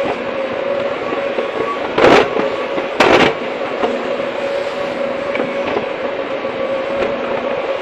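Hydraulic excavator running steadily with a constant drone, broken by two loud, short bursts about a second apart.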